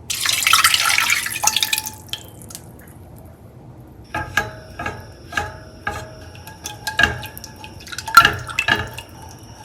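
Water poured into a pan for about a second and a half. Then, from about four seconds in, a utensil stirs and clinks against the pan again and again, each clink ringing briefly.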